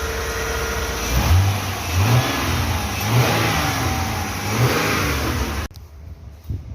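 Freshly rebuilt Mitsubishi 6G72 V6 engine running on its first start-up, revved up and back down four times. The sound drops away abruptly about five and a half seconds in.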